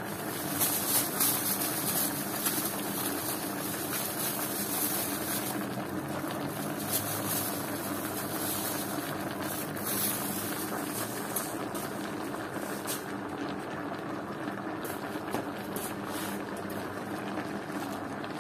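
Pork-belly aom broth simmering under a pile of flowering Chinese cabbage in a wok: a steady bubbling with scattered faint crackles.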